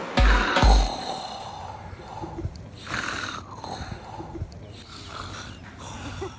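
A man snoring in rough, noisy breaths, with small snorts between them. Two heavy bass beats of a track made from the snoring close it out in the first second.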